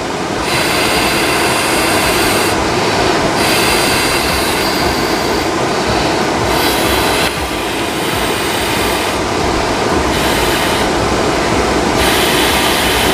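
Breath blown by mouth into the valve of a self-inflating sleeping pad to top it up until it is taut: about five long, hissing blows with short pauses between them, over a steady rushing noise.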